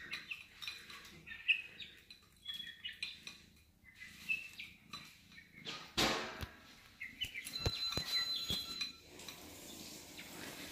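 Young chickens in a wire cage giving short, high chirps, with scattered rustling and clicks; a sharp thump about six seconds in.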